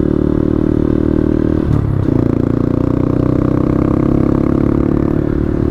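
Honda Grom's single-cylinder 125 cc four-stroke engine running at a steady low speed under way. About two seconds in, the note breaks briefly, then settles at a slightly different pitch.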